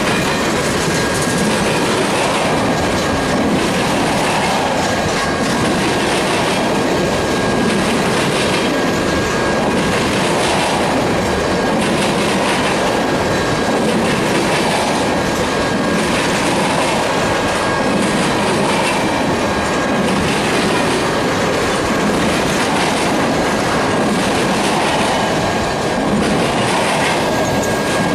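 Freight train tank cars rolling past close by: a steady loud rumble of steel wheels on rail, with rhythmic clickety-clack over the rail joints and a thin, steady high-pitched wheel squeal over the top.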